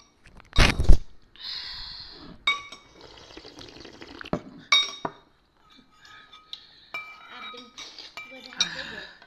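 A metal spoon clinking against a ceramic soup bowl several times, with short ringing tones, as the bowl is stirred and soup is slurped from it. A loud thump comes about half a second in and is the loudest sound.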